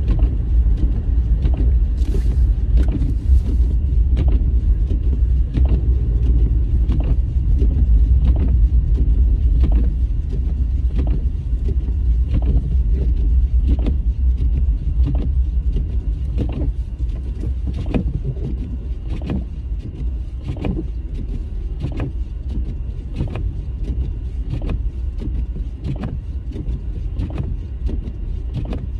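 Car interior while driving: a steady low road and engine rumble, easing slightly about two-thirds of the way through, with a short click repeating evenly about every three-quarters of a second.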